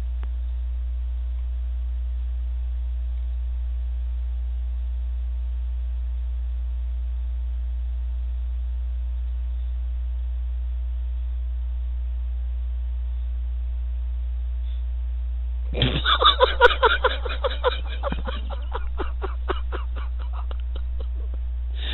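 Steady low electrical mains hum on a voice-chat audio line. About sixteen seconds in, a few seconds of louder, choppy sound cut in over it and then fade.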